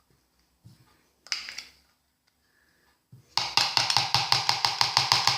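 A spoon tapping rapidly against a bowl, about eight even strokes a second in the second half, while body butter is worked into a slime mixture. A single short scrape comes about a second in.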